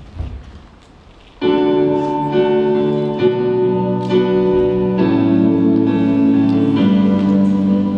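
Keyboard music with held piano-like chords starts suddenly about a second and a half in and plays on loudly, the chords changing every second or so. Before it starts there are only a few faint thumps.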